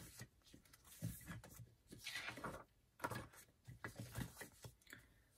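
Faint handling of paper and stickers on a tabletop: scattered light taps and clicks, with a brief rustle about two seconds in.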